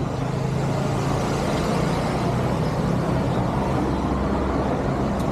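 Road traffic close by on a busy city street: car engines running with tyre and road noise, a steady loud wash with a low engine hum in the first few seconds.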